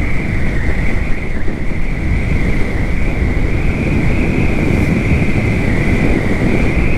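Yamaha FZS V3 motorcycle riding at a steady speed, with heavy wind rushing over the microphone as a low rumble and a steady high whine running over it.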